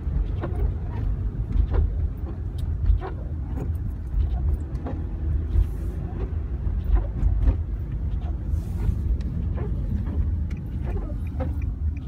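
Steady low rumble of a car's engine and tyres heard from inside the cabin while driving on a snow-covered road, with scattered faint clicks.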